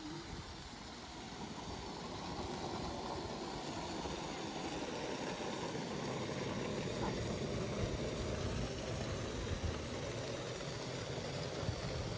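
Steady low rumbling street noise, like traffic, growing slightly louder about two seconds in and then holding.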